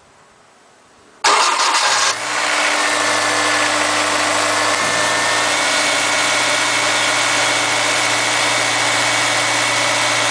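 Honda S2000's four-cylinder engine starting: about a second in, a loud grinding burst for about a second as it cranks, then it catches and settles into a steady idle. This grinding at startup is the fault the owner is showing.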